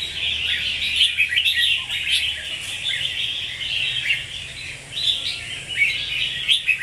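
Red-whiskered bulbul song: a busy, unbroken stream of short, high chirping notes.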